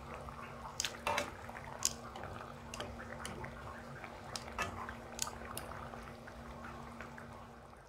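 Spaghetti boiling in a pan of water while being stirred with silicone tongs: a faint, steady bubbling with scattered small pops and clicks, over a low steady hum.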